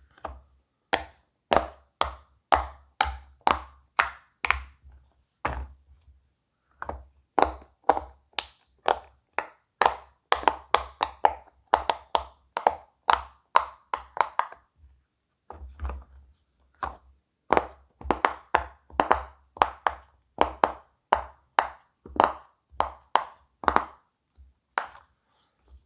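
Silicone pop-it fidget toy bubbles being pressed one after another, each giving a slight pop, at about two a second with a couple of short pauses.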